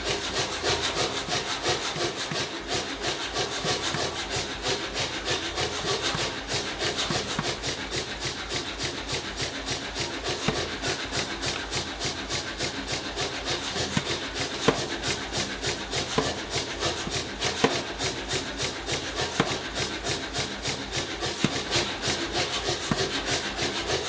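A hand tool scraping in quick, even back-and-forth strokes, several a second and without pause.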